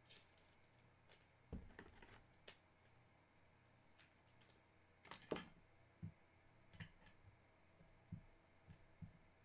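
Near silence with faint, scattered clicks and taps of trading cards and a clear plastic card holder being handled on a tabletop. The loudest tap comes a little over five seconds in.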